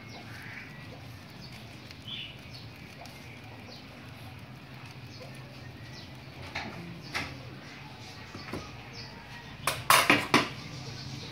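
A metal hand grater scraping a block of processed cheese, with scattered light clicks and scrapes. Near the end comes a short burst of louder clattering, the loudest sound here. Faint bird chirps sound in the background.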